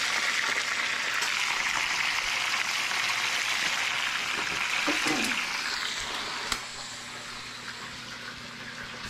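Fish frying in a pan of hot oil, sizzling steadily, then dying down about six seconds in.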